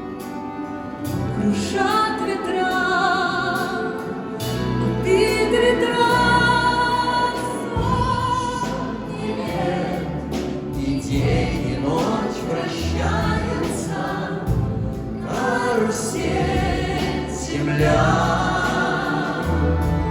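Music: a song sung with vibrato over an accompanying orchestra of Russian folk instruments, with choir-like massed voices.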